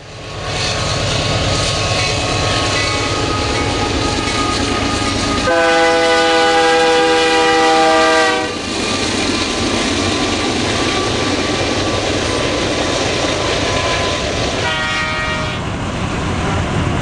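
Canadian Pacific double-stack intermodal freight train passing with a steady rumble and clatter of wheels. The lead diesel locomotive sounds its air horn, a chord of several tones, in one long blast about five seconds in, then a short blast about a second long near the end.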